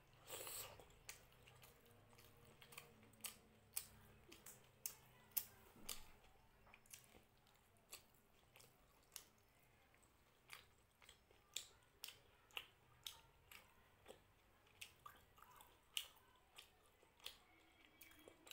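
Close-miked chewing of a mouthful of mutton: a run of short, sharp mouth clicks and smacks, irregular, about one to two a second.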